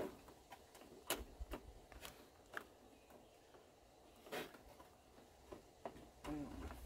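Faint, scattered clicks and knocks of hard plastic being handled as the coolant overflow reservoir is worked loose under the hood, with a brief scrape about four seconds in.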